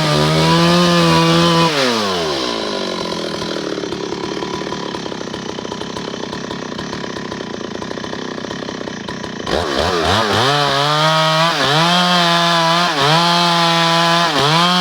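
Stihl MS 382 two-stroke chainsaw running at high revs with quick dips in pitch. About two seconds in the revs fall sharply and the saw runs lower and rougher for several seconds. Near the end it jumps suddenly back to high revs, dipping and rising again.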